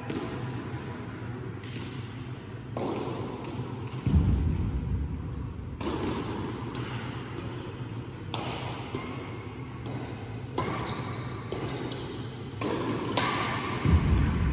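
Badminton rally: rackets strike the shuttlecock about a dozen times at irregular intervals, each crack ringing in a large hall, with two heavy thuds about four seconds in and near the end. A steady low hum runs underneath.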